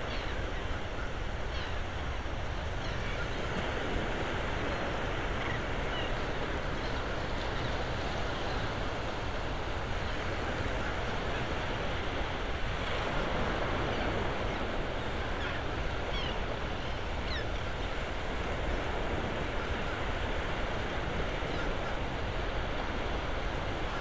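Gentle surf washing on the beach with wind rumbling on the microphone, a steady even wash. A few brief, faint high calls from the resting flock of shorebirds come through now and then.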